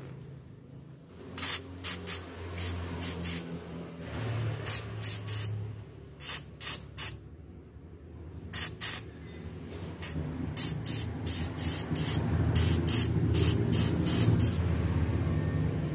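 Aerosol can of Super Cleaner carburetor cleaner sprayed in many short bursts of hiss, in quick clusters of two to six, to clean a small plastic part.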